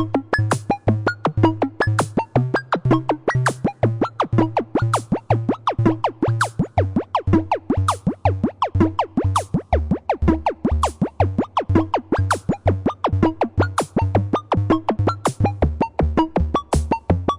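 Electronic music: a synthesizer over a drum-machine beat, with sharp high clicks on the beat and a pulsing bass line that steps up and down in pitch.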